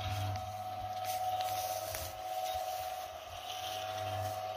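Dry straw bedding rustling and a plastic crate scraping under gloved hands, in uneven bursts, over a steady hum.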